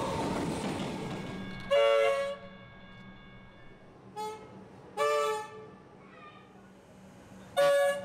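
Comeng electric train's RVB three-chime horn sounding a series of short toots: three loud half-second blasts and one fainter one, over a low steady hum. Before the first toot, about two seconds in, the rumble of a passing train fades away.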